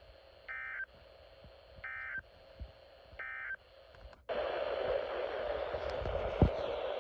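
Emergency Alert System end-of-message data bursts on NOAA Weather Radio: three short, identical bursts of warbling digital tones about a second and a half apart, marking the close of the weekly test. About four seconds in, steady radio hiss comes up, with a sharp click near the end.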